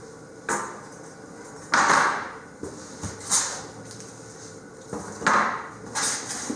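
Packing materials and parts being handled and slid about in a shipping box: a few short scraping, rustling sounds, the loudest about two seconds in.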